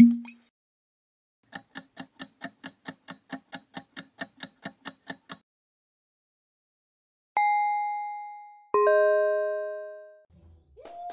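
Quiz countdown-timer sound effect: rapid even ticking, about five ticks a second, for nearly four seconds. After a pause come two bell-like chimes, a single ringing tone and then a fuller chord, both dying away, as the correct answer is revealed.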